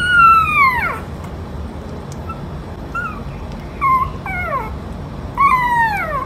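Puppy whimpering: high-pitched whines that slide downward in pitch. There is a long one at the start, a few short squeaks and whines in the middle, and another long falling whine near the end.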